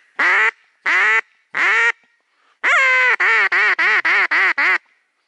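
Loud mallard-type duck quacking. Three single quacks come in the first two seconds, then a longer quack followed by a quick descending run of about seven short quacks, some four a second, in the pattern of a hen mallard's calling.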